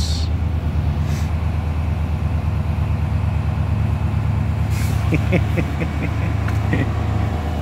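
Chevrolet Cheyenne pickup's engine idling steadily just after a cold start, a low pulsing rumble. About five seconds in, a quick run of short high ticks joins it.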